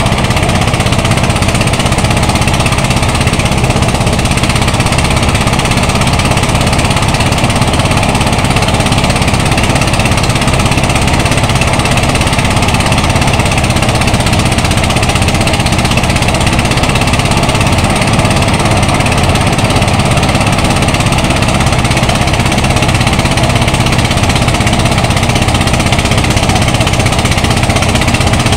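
Portable engine-driven rice thresher running steadily and loudly as bundles of harvested rice stalks are fed into its spinning drum: a constant engine hum under a dense rattle.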